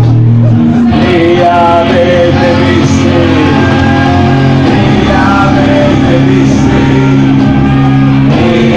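Live band music on a club stage: held low chords with a voice singing over them from about a second in, loud throughout.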